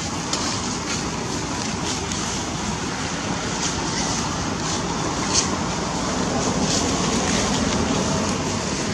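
Steady rushing background noise that swells a little near the end, with a few faint clicks over it.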